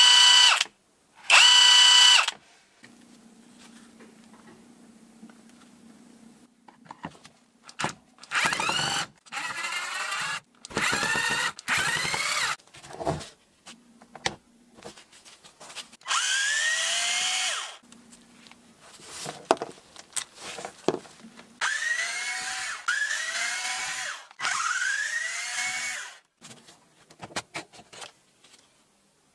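DCA ADPB280 cordless impact wrench's motor test-run free from a separate battery in short trigger pulls. Two brief steady runs come at the start; from about eight seconds on there are repeated runs, each opening with a rising whine as the motor spins up.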